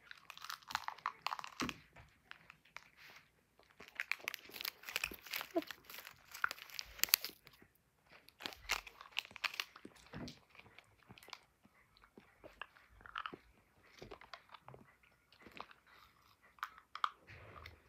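A child chewing sour candy close to the microphone: crunching and chewing in bursts, loudest in the first half.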